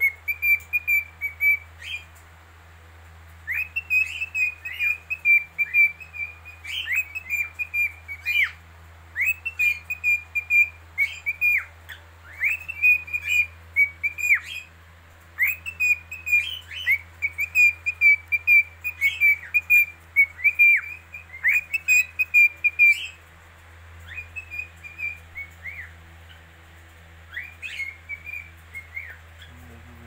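Lutino cockatiel whistling its song: repeated phrases of high, clear notes, many ending in quick downward-sliding whistles, with short pauses between phrases and softer phrases near the end. A faint steady low hum sits underneath.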